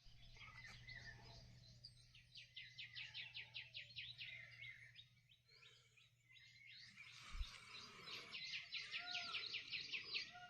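Faint outdoor birdsong: rapid series of repeated high notes, in two runs with a short lull between, and a few brief gliding calls. A steady low hum runs underneath.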